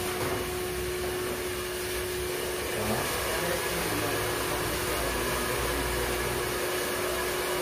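Steady rushing, blowing-air background noise of a working barbershop, with a faint steady hum that fades out near the end.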